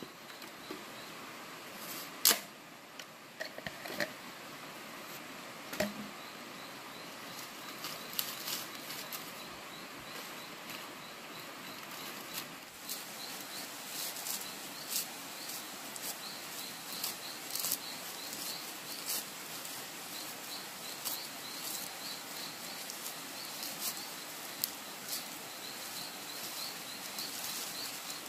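Dry plant fibre crackling and rustling as it is rubbed and twisted by hand. The crackles come as many small clicks, denser in the second half. A few sharper knocks come in the first several seconds.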